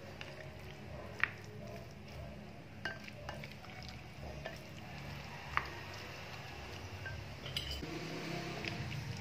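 A spatula stirring diced fried tofu and pork in sauce in a ceramic bowl: soft wet mixing with scattered clinks against the bowl, the sharpest about a second in and again about five and a half seconds in, over a steady low hum.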